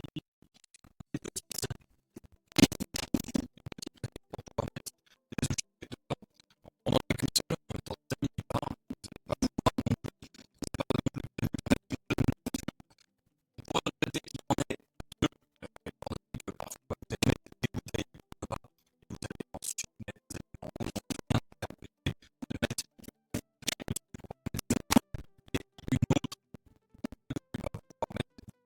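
Background music made of dense runs of short clicks and hits, with brief gaps now and then.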